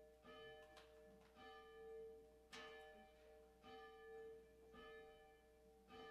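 A single church bell tolling faintly, struck about once a second at the same pitch, each stroke ringing on into the next.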